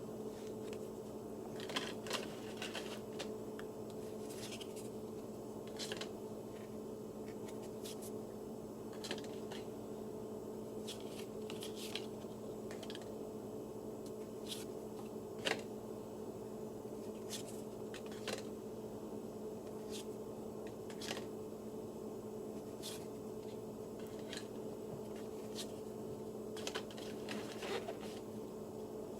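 Trading cards being handled one by one: short, soft slides and flicks at irregular intervals, over a steady low hum.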